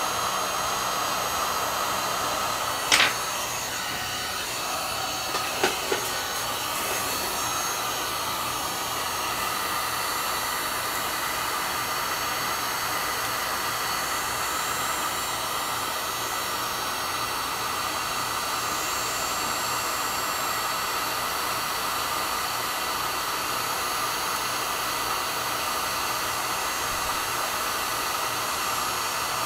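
Black & Decker heat gun running steadily on its low setting, blowing hot air onto a circuit board to melt the solder under a surface-mount IC. A sharp click about three seconds in and two smaller clicks near six seconds.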